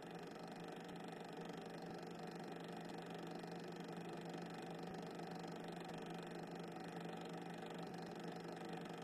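A steady low hum with a layer of hiss, unchanging throughout, with no distinct events in it.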